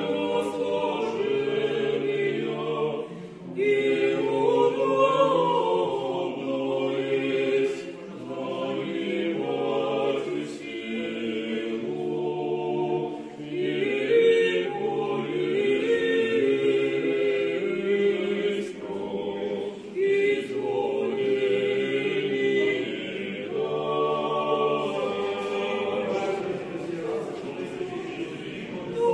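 Orthodox church choir singing liturgical chant unaccompanied, in several parts, with sustained chords in phrases a few seconds long separated by brief pauses.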